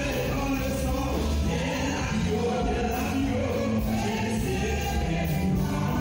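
Gospel worship music: a choir singing held notes over a steady bass.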